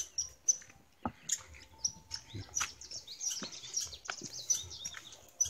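Small birds chirping repeatedly in short high notes, with a few separate soft knocks of footsteps on a stone garden path about a second apart.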